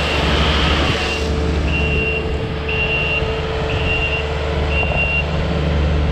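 Kubota SSV75 skid steer's diesel engine running steadily while the machine reverses, its backup alarm giving five short high beeps about a second apart.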